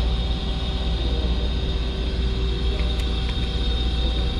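Steady machine hum of a powered-up CNC lathe standing with its spindle stopped: a strong low drone with a few thin steady whines over it. A couple of light clicks about three seconds in as the control-panel keys are pressed.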